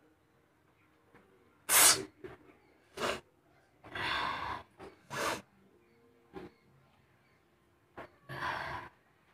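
A woman sneezing, set off by the sharp pungency of a green chilli held to her nose: one loud sneeze about two seconds in, then a run of shorter gasping breaths and smaller sneezes, the last near the end.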